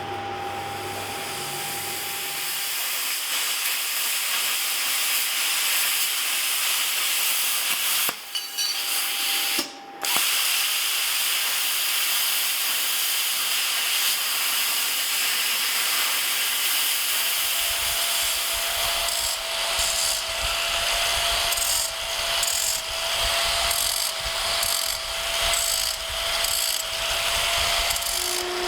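A power tool runs steadily with a high hiss and a faint whine. It cuts out briefly twice about a third of the way in. From a little past halfway, a low, rhythmically pulsing rumble joins it.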